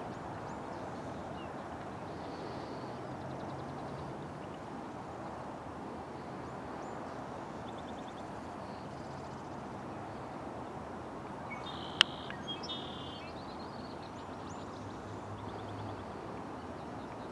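Birds chirping and trilling over a steady outdoor hiss, with a faint low hum from a distant approaching diesel freight locomotive. A single sharp click about two-thirds of the way through is the loudest sound.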